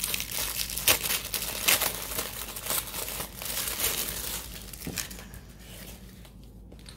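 Clear plastic bag crinkling as it is pulled open and handled, with sharper crackles about one and two seconds in; the crinkling dies down after about five seconds.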